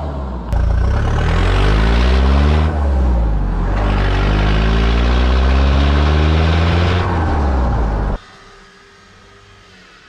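Nissan Terrano's diesel engine running with a holed exhaust, accelerating with its pitch rising and dropping back several times as it pulls away through the gears. It cuts off suddenly about eight seconds in, leaving a much quieter background.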